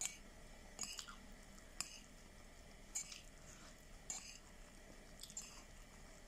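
Metal spoon scraping and clinking faintly against a ceramic plate while scooping through fried rice, about once a second.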